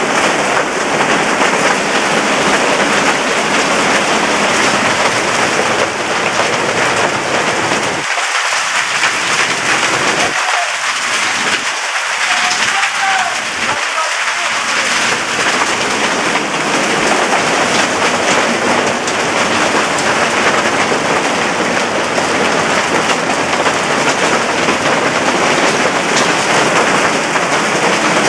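Large hailstones, some two inches or more, and rain pelting down in a microburst's high winds, a loud, dense, unbroken downpour of impacts.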